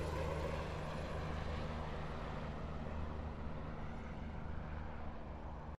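Steady low hum with an even background hiss that cuts off abruptly near the end.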